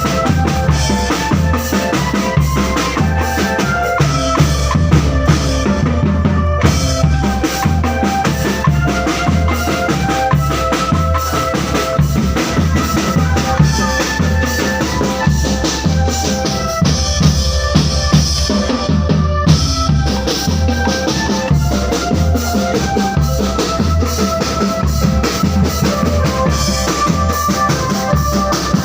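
Marching drum band playing a dense, steady drum pattern of snares and bass drums, with a melody carried over the drumming.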